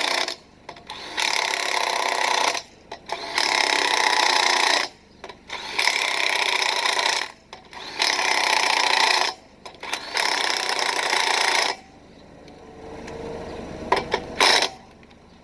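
Impact wrench driving lug nuts tight in a cross pattern: five rattling bursts of about a second and a half each with short pauses between, stopping about twelve seconds in. A couple of sharp knocks follow near the end.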